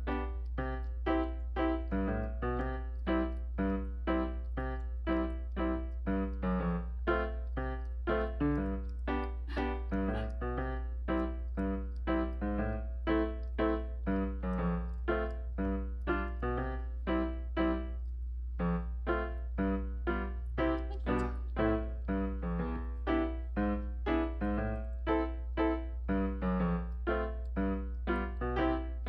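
Background music: a light piano or electric-piano tune with evenly paced notes, over a constant low hum.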